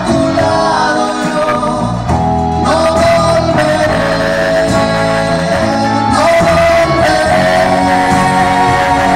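Live pop-rock band playing: electric guitars, bass and drums, with women singing over them.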